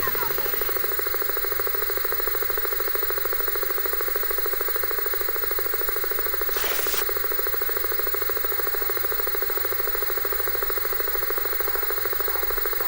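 Analog television static and distortion from an old Panasonic set, processed into a sound effect: a steady, rapidly pulsing buzz over hiss. A falling whine comes in the first half second, and a short burst of louder hiss comes about seven seconds in.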